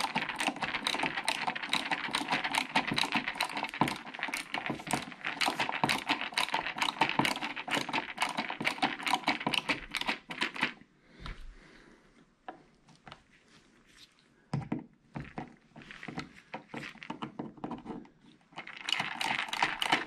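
Ratcheting screwdriver clicking rapidly as it drives the mounting screws of a light switch into its electrical box. The clicking stops about ten seconds in, leaving a few faint knocks, and starts again briefly near the end.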